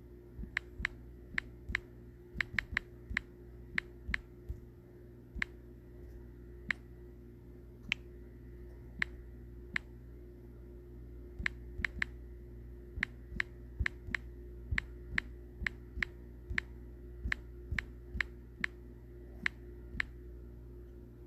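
Sharp clicks at irregular intervals, one to three a second with short pauses, over a steady low hum.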